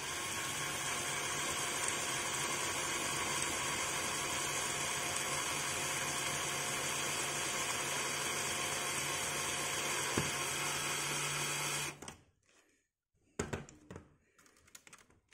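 Cordless drill running steadily for about twelve seconds with its bit cutting into a stuck laptop screw, then stopping suddenly. A few faint knocks follow.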